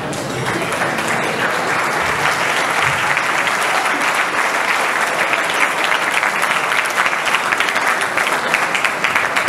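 Audience applauding, many hands clapping together in a steady patter.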